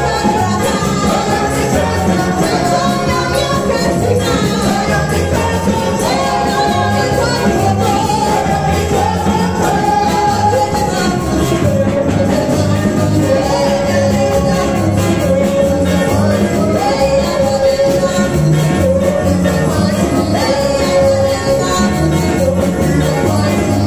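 A woman singing a gospel song into a microphone, her voice amplified over backing music with a bass line and a steady beat.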